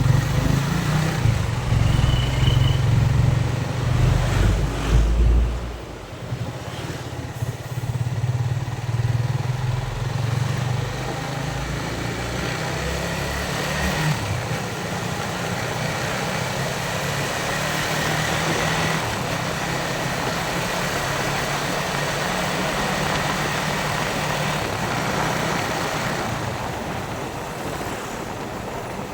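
Yamaha Vixion single-cylinder motorcycle engine running on the move, with wind and road noise. The engine is loud for about the first five seconds, then drops to a quieter, steady running sound.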